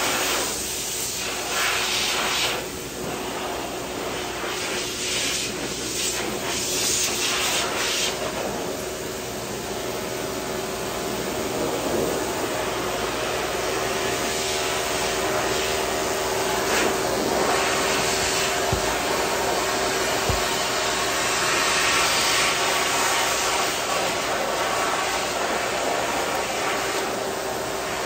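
Electric pet clippers running with a steady buzz as they shave through a long-haired cat's coat.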